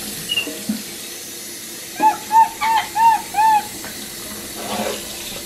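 A capuchin monkey gives a quick run of about five short calls about two seconds in, each rising then falling in pitch, over a steady hiss of running water in a sink.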